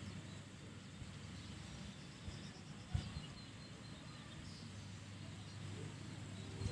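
Quiet outdoor ambience: a steady low rumble with a few faint, short bird chirps in the middle, and one brief low thump about three seconds in.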